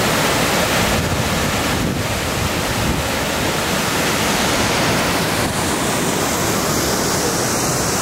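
Steady rush of water from the Öxarárfoss waterfall and the rapids below it.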